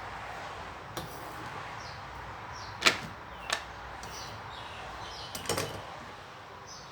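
A few sharp knocks from kitchen items being handled while the salad ingredients are prepared: one about a second in, the loudest near three seconds with another half a second later, and a quick cluster of knocks around five and a half seconds.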